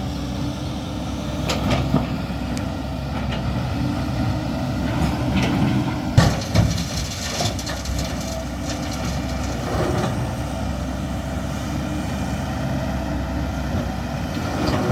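Heavy diesel machinery running steadily with a low rumble, with scattered knocks and a loudest clank about six seconds in.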